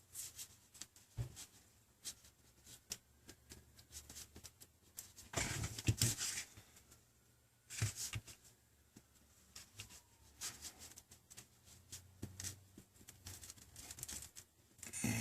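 Small clicks, taps and scraping of a pry tool working shattered touch-screen glass loose from its adhesive. There is a louder rasping scrape lasting about a second, around five seconds in, and a shorter one a couple of seconds later.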